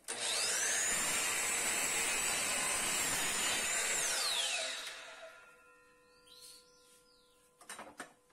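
Miter saw switched on and running with a steady high whine for about four seconds while the blade cuts through a wooden board, then switched off, the whine falling in pitch as the blade spins down. A few light clicks near the end.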